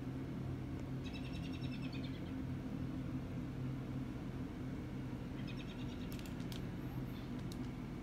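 A small bird chirping in two short, rapid trills, about a second in and again about five and a half seconds in, over a steady low hum.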